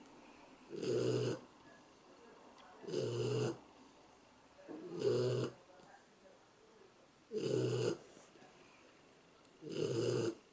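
A sleeping Shar Pei dog snoring: five loud, regular snores about two seconds apart, each lasting under a second.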